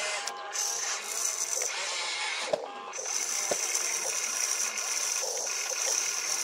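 Small electric motors of a radio-controlled excavator whining steadily, starting and stopping as it swings and works its boom and bucket, with two sharp clicks about two and a half and three and a half seconds in.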